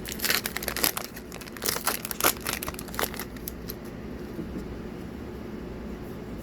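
Foil booster pack wrapper being crinkled and torn open: a quick run of sharp crackles for about three seconds, then only a low steady room hum.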